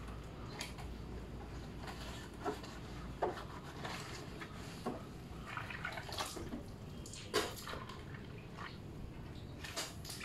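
Irregular water splashes and drips from hand-washing a motor scooter out of a bucket, with short sharp splashes roughly once a second.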